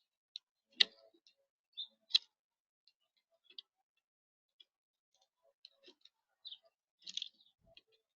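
Small birds at a seed feeder: irregular sharp taps and clicks of beaks and feet on the feeder and seed, with two louder knocks about one and two seconds in and a busier cluster near the end.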